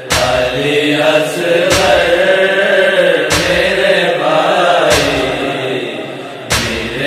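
A boy chanting an Urdu nauha lament in a slow, wavering melody, over a deep beat about every second and a half.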